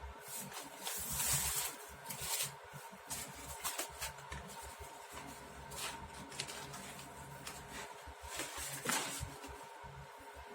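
Handling noise: scattered rustles and clicks of things being moved and handled, with a few louder scrapes near the start and again near the end, over a faint steady whine.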